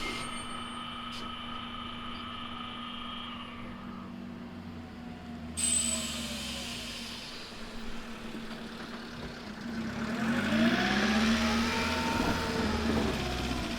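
A vehicle's motor over a steady low hum: a sudden rise in noise about five and a half seconds in, then from about ten seconds in the motor rises and falls in pitch.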